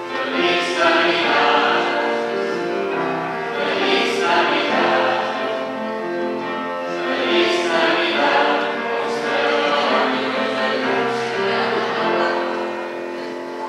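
A woman singing a slow song with instrumental accompaniment, long held notes, easing a little in loudness near the end.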